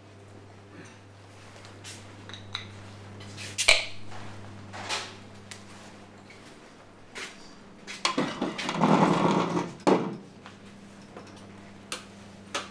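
Handling and movement noises in a small room: scattered clicks and knocks, a sharp clatter about four seconds in, and a louder scraping rustle lasting about two seconds near the end. A low steady hum runs underneath.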